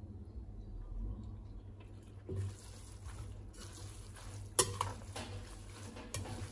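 A metal spoon scraping and clinking against a glass mixing bowl as rice vermicelli is tossed with dressing. There are soft scrapes and squelches, and a sharp clink a little past the middle.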